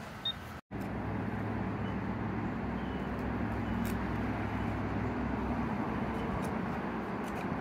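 A steady low engine hum, like a motor vehicle running nearby, which starts after a brief dropout under a second in and carries on unchanged.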